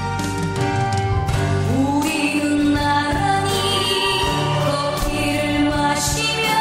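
Background music with slow, held notes and a singing voice.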